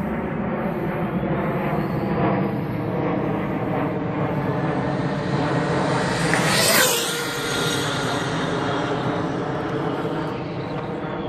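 OFNA GTP2E electric RC car with a 2650 kv brushless motor on 6S running flat out in a speed run, a high motor whine. It passes close about six to seven seconds in, the whine peaking and then dropping sharply in pitch as it goes by.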